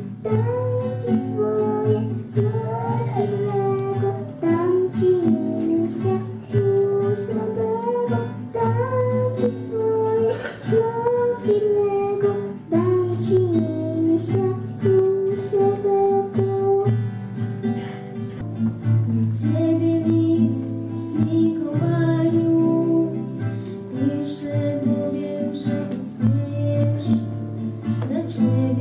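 A young girl singing a Polish Christmas carol over acoustic guitar accompaniment, amplified through a microphone.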